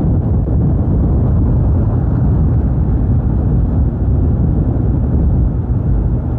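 Motorcycle running steadily while being ridden along a road, a dense low rumble with no sudden events.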